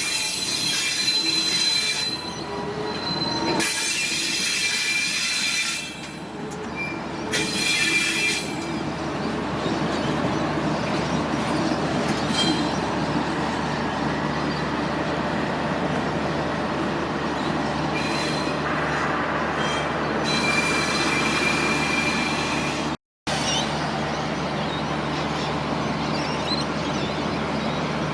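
Diesel-hauled passenger train moving slowly, its wheels squealing in repeated high-pitched bursts of a second or two over a steady low rumble. The sound drops out for a split second about five seconds before the end.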